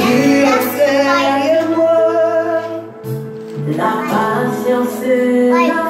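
Worship music playing: a sung melody with male and female voices over steady instrumental backing.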